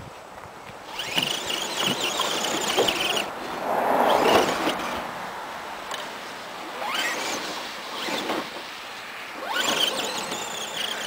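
Electric RC crawler truck (Axial AX10 chassis, Integy 35T brushed motor) whining through its motor and gears in bursts, the pitch rising with each push of the throttle, several times. A louder burst of crunching noise about four seconds in.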